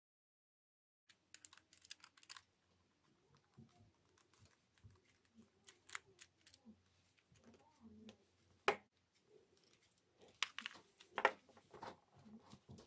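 Small clicks and taps of a star-bit screwdriver and the plastic shaver body being handled while the screw in the shaver's base cap is undone, starting about a second in. One sharp click stands out a little after halfway, and a cluster of clicks comes near the end.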